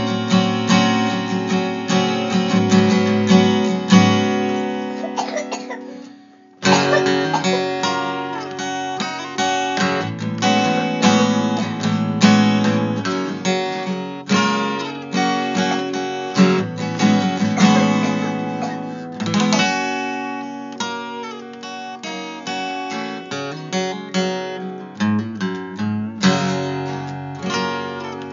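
Acoustic guitar music: plucked notes and strummed chords. It fades out about six seconds in and comes back abruptly a moment later.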